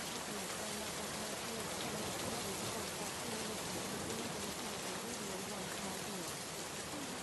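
A steady, even rain-like hiss masking a faint voice speaking affirmations beneath it.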